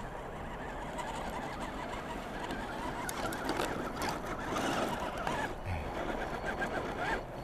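Electric motors and gearboxes of radio-controlled scale crawler trucks whining as they climb over gravel and snow. The sound gets louder as a blue RC pickup drives close past.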